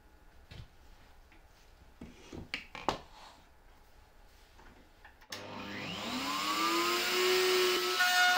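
A few wooden knocks as feather boards are set down on the router table. About five seconds in, the table-mounted router switches on and spins up, its whine rising in pitch and growing louder before settling into a steady high-speed whine.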